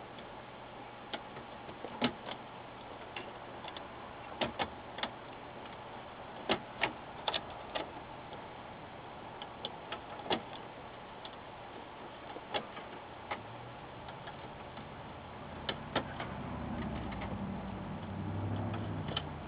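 Small plastic connectors being pushed into the backlight lamp sockets along the edge of an LCD panel: scattered light clicks and taps at irregular intervals over a faint hiss. A faint low hum comes in near the end.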